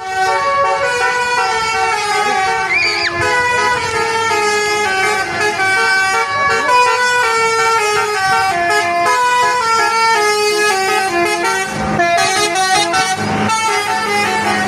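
Basuri multi-tone bus horn playing a melody, a quick run of stepped notes one after another.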